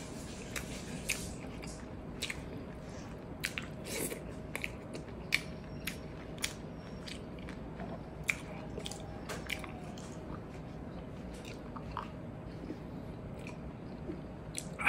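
Close-miked chewing of a mouthful of food: wet mouth smacks and sharp irregular clicks, with some crunch, over a faint steady hum.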